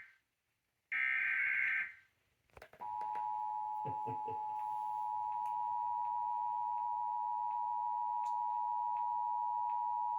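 Emergency Alert System activation: the tail of one SAME header data burst at the very start and another one-second burst of digital data tones about a second in, then, near the three-second mark, the EAS two-tone attention signal (853 and 960 Hz sounded together) comes on and holds steady. It heralds a child abduction emergency alert.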